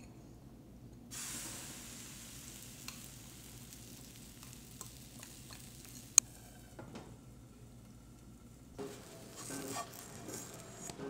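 Pancake batter frying with a light sizzle in a nonstick pan, starting about a second in, with small clicks of a fork against a ceramic bowl and one sharp clink about six seconds in. A few utensil clatters near the end.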